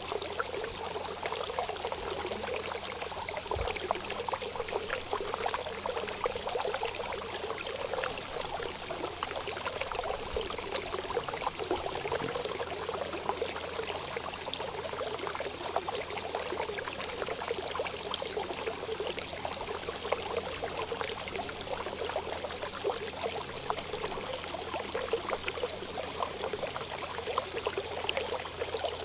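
Steady trickling, flowing water, a continuous splashing murmur without pauses.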